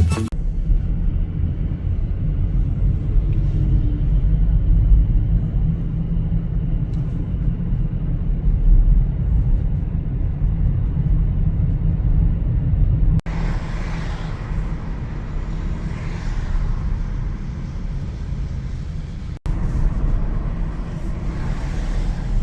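Steady low rumble of a car driving, engine and road noise heard from inside the car. The sound breaks off abruptly twice, about 13 and 19 seconds in, and picks up again.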